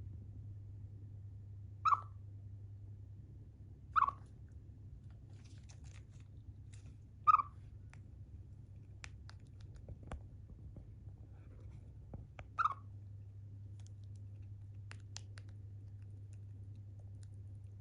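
Pet Siberian chipmunk chirping: short single chip calls a few seconds apart, four in all, with faint clicking between them over a steady low hum.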